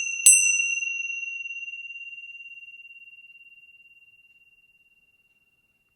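A high-pitched meditation chime struck a second time just after the start, then ringing on one clear high tone that fades away over about five seconds.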